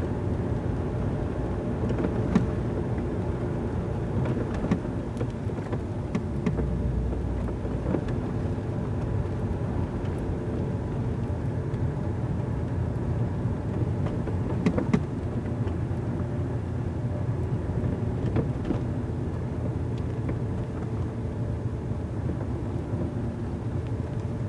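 Car cabin noise while driving slowly in traffic: a steady low rumble of engine and tyres on the road, with a few faint ticks from inside the car.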